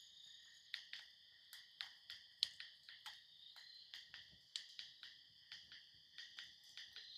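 Faint steady night chorus of crickets, with irregular soft clicks a few times a second.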